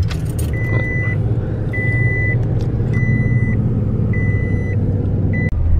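Toyota Tundra pickup's engine catching at the start and then running steadily, heard from inside the cab, with the dashboard warning chime beeping evenly about once a second.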